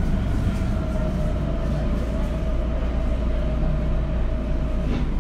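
Stationary Tokyo Metro 02 series subway train humming steadily at the platform, with a steady whine that cuts off near the end.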